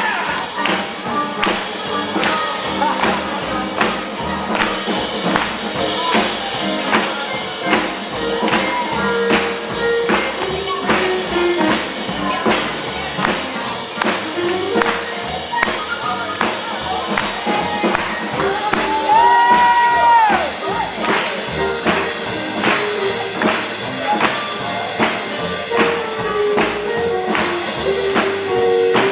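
Live band playing an instrumental passage of an up-tempo gospel song, driven by a steady beat of tambourine and drums under a moving melody line. A long held note stands out about two-thirds of the way through.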